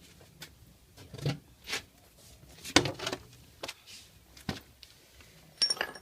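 Irregular knocks and clunks of handling, about eight in all, the loudest a little under three seconds in, with a quick rattling cluster near the end.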